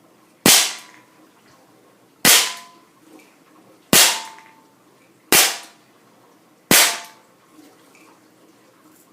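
Daisy Model 200 CO2 BB pistol firing five single shots, each a sharp crack, about one and a half seconds apart, and each dying away over about half a second.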